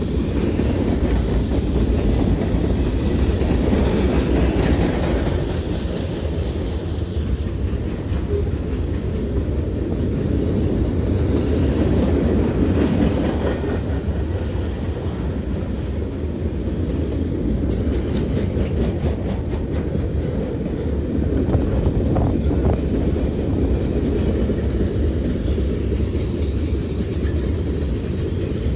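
Freight cars of a mixed freight train (covered hoppers, tank cars, boxcars) rolling past, their wheels rumbling steadily on the rails, with a run of rapid clicks about two-thirds of the way through.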